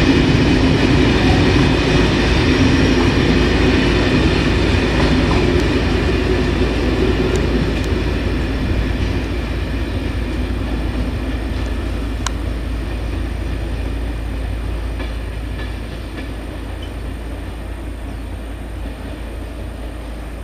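Passenger train of Corail coaches rolling away on the rails, its running noise fading steadily as it leaves. A single sharp click about twelve seconds in.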